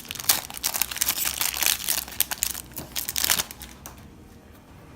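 Plastic wrapping of Yu-Gi-Oh booster packaging crinkling and tearing as it is pulled open, stopping about three and a half seconds in.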